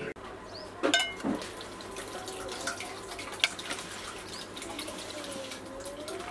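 Steady hiss of background noise with a few sharp clinks of a metal serving spoon against a steel pot and plates.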